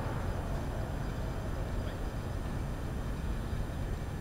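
Tow truck's engine idling, a steady low rumble heard from inside the cab.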